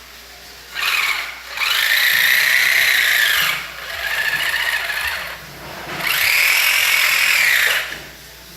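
Small electric motor whining in four bursts, each spinning up and falling off again, with the two longest about two seconds each.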